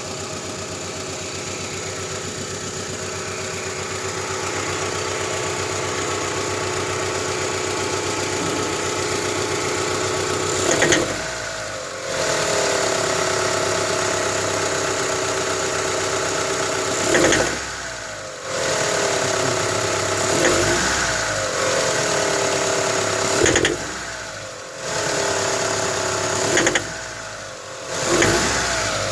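Great Wall Hover H3 engine idling steadily, then blipped on the throttle six times from about ten seconds in, each short rev falling back to idle. The owner is running it to show a knock.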